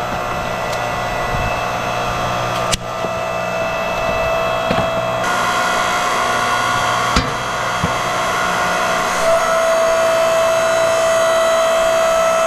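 Tiya 8-ton 2,300 W electric hydraulic log splitter running steadily: its motor and pump hum with a held whine that grows louder about nine seconds in. A couple of sharp cracks come through, about three and seven seconds in.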